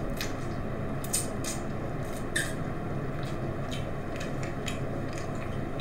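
Mukbang eating sounds from telur gulung, rolled egg on bamboo skewers: quiet chewing with scattered short clicks and smacks, over a steady low hum.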